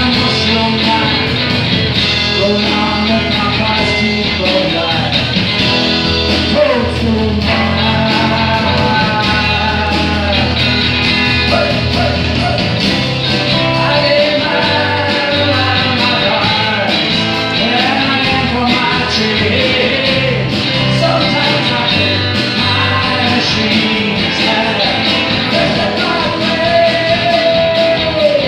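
A rock band playing live: drum kit, electric bass and strummed guitars, with a voice singing over them.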